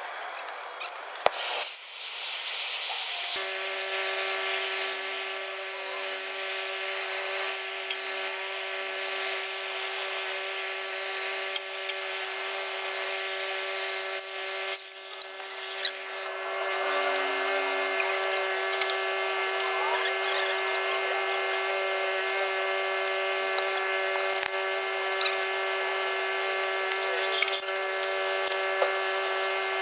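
A motor starts up about three seconds in and runs steadily with a whine over a hiss, amid shop work; a few sharp knocks come near the end.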